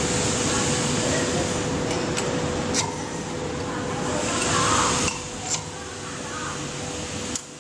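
A steady mechanical hum with a few sharp clicks and rattles as a hand-held circular saw's base plate is tilted and set. The hum drops off abruptly near the end.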